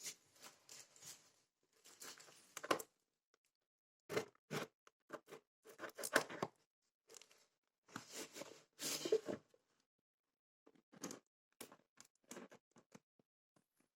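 A parcel's packaging being opened by hand: faint tearing, crinkling and rustling in irregular spurts, with sharp clicks and short pauses between.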